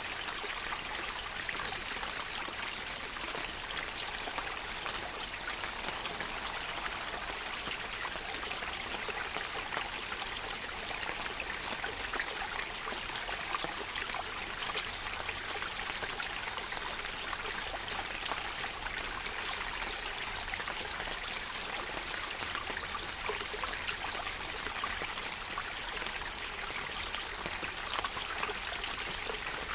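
Steady rain recording: an even hiss of falling water, dense with the fine patter of many small drops.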